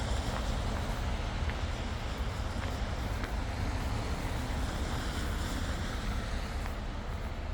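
Steady road traffic noise of a city street, with a heavy low rumble underneath.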